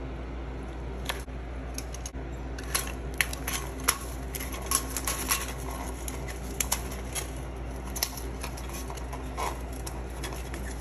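Irregular light clicks and scrapes of a plastic adhesive curtain rod holder being handled and pressed against a textured wall, over a steady low hum.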